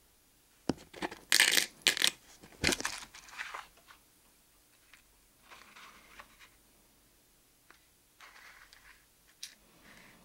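Small metal fishing tackle clinking and rattling as it is handled. A cluster of sharp clinks comes in the first few seconds, followed by softer, sparser rustles and clicks.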